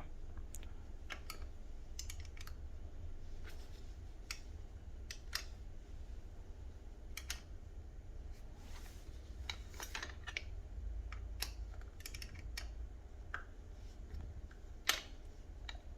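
Irregular light metallic clicks and taps of hand tools on the bike's fittings as a bolt is tightened down, over a steady low hum.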